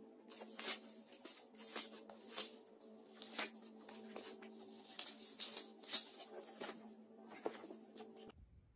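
Pages of a paperback sticker activity book being turned and handled: a string of crisp paper rustles and flicks at an uneven pace. A faint steady hum runs underneath and stops shortly before the end.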